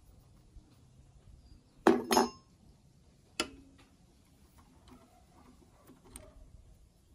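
Metal clinking as pliers and the rusty steel parts of an old geared hand tool knock together: a double clink about two seconds in, a single clink about a second and a half later, then faint small ticks.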